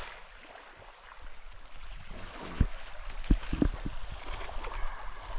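Faint water noise with a few short, dull knocks about halfway through.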